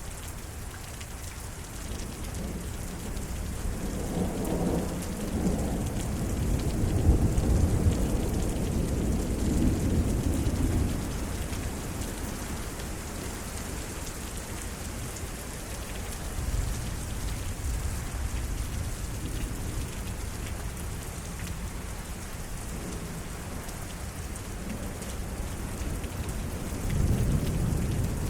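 Steady rain falling during a thunderstorm, with a long roll of thunder that builds a couple of seconds in, peaks, and fades out by the middle. A second, shorter rumble of thunder comes near the end.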